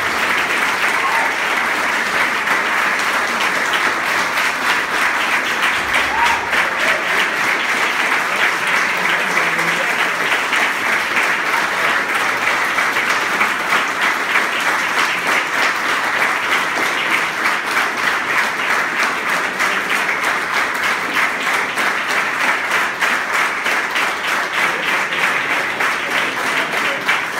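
A crowd of people applauding steadily and at length, dense clapping that does not let up.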